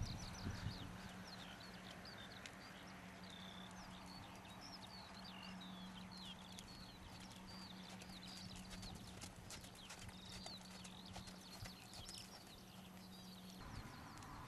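A horse's hoofbeats on arena sand, faint and irregular, with small birds chirping throughout. A steady low hum stops near the end.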